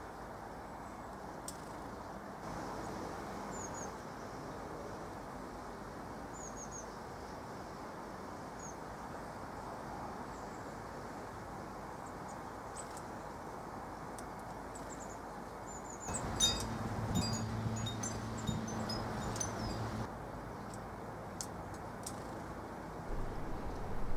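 Outdoor garden ambience: a steady low background rush with faint, short, high chirps of small garden birds scattered throughout. About two-thirds of the way in, a few seconds of high clicks and pings sound over a low hum.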